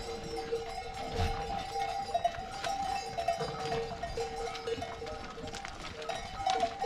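Flock of sheep and goats on the move, with bells clinking among the animals and a steady ringing tone through it.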